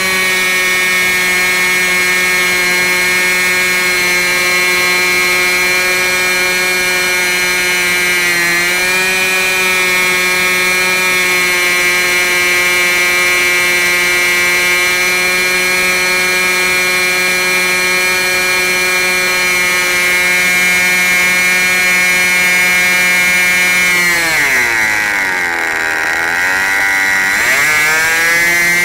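OS 46 LA two-stroke glow engine running at full throttle on a test stand, swinging an 11x6 propeller at about 10,900 rpm: a steady high-pitched buzz. Near the end its pitch sags sharply for a few seconds and climbs back up.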